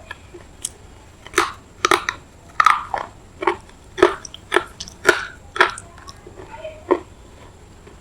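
Someone biting and chewing a semi-wet piece of pure red clay: a series of about ten crisp crunches, roughly half a second apart. The clay is gritty.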